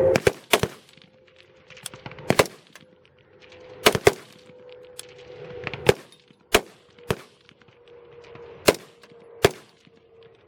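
Rifle shots from a line of service rifles firing at their own pace: about a dozen shots at irregular intervals, some close and loud, others fainter from shooters further down the line. A faint steady hum runs underneath.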